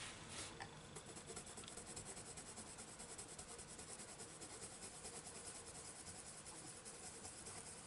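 Faint scratching of a Prismacolor coloured pencil (Cloud Blue) stroked lightly back and forth over a thin book page, layering and blending a pale blue over violet shading in quick, even strokes.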